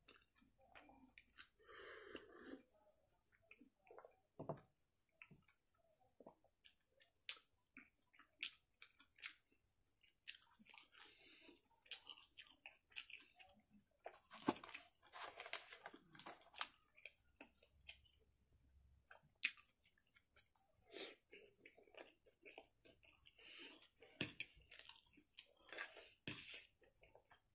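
Close-up chewing and mouth sounds of someone eating spicy instant noodles, with many short, irregular wet smacks and clicks. The sound is fairly quiet.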